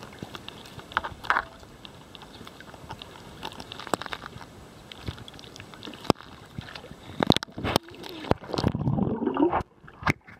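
Pool water lapping and slapping against a waterproof camera held at the surface, with scattered sharp clicks and a louder gurgling stretch. About nine and a half seconds in the sound drops and goes muffled as the camera goes under.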